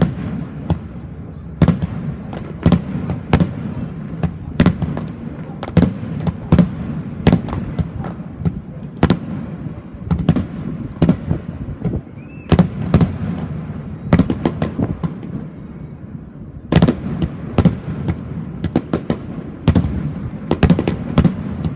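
Aerial fireworks going off in an irregular string of sharp bangs, at times several a second, over a steady low rumble. The bangs thin out for a moment about three-quarters of the way through, then come again in a dense cluster.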